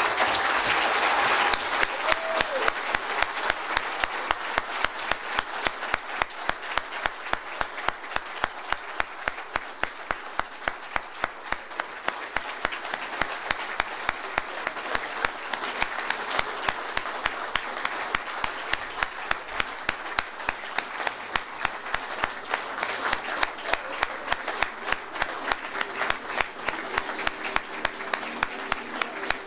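Crowd applauding, clapping together in a steady rhythm of about three claps a second.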